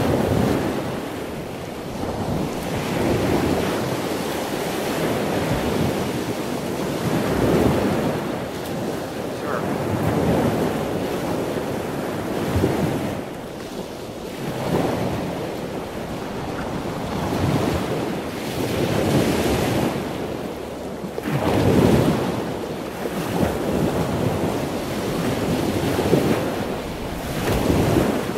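Wind buffeting the microphone on an open boat in uneven gusts that swell and fade every couple of seconds, over choppy water washing against the hull.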